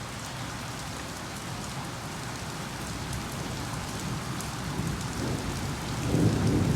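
Steady rain falling on surfaces, a continuous hiss. Near the end a low rumble of thunder swells up over the rain.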